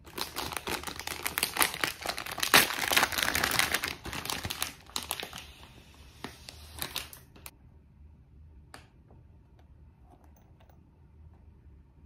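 Clear plastic packaging bag crinkling and rustling as a hard-shell case is pulled out of it. The crinkling stops about seven seconds in, leaving a couple of faint taps.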